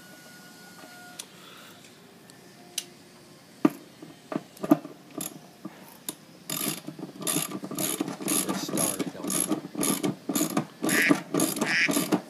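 Hand ratchet with a socket on a long extension, clicking as the self-threading mounting bolts in the base of a Trane compressor are run down. A few separate clicks and knocks come first; from about halfway it turns into repeated runs of rapid ratchet clicking, stroke after stroke.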